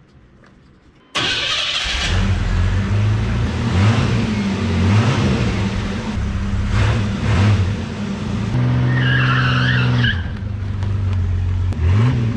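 Chevrolet S10 pickup's carbureted engine, with its exhaust cut off short and no muffler, starting suddenly after about a second of quiet and revving up and down, with tires screeching in a burnout.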